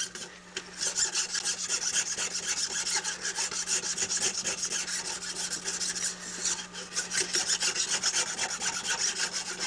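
A flat file rasping in quick, short, even strokes across a split bamboo rod strip held in a wooden filing block, taking the raised node down flush. The strokes begin just under a second in and run on steadily.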